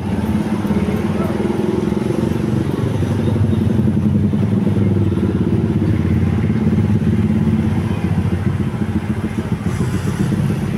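A motor vehicle's engine running close by: a loud, steady deep hum that gets a little louder about three seconds in.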